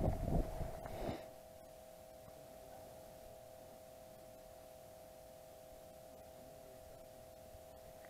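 A few short handling knocks in the first second, then a faint, steady electronic hum of two close tones.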